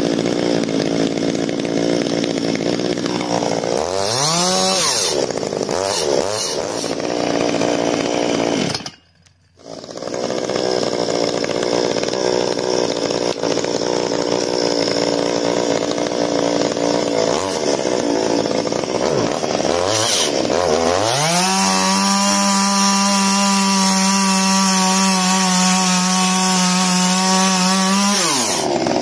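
Ryobi 50cc two-stroke petrol chainsaw idling just after a cold start, with brief revs up and back down. Later it is held at full throttle for about seven seconds, cutting into a log, then drops back toward idle near the end.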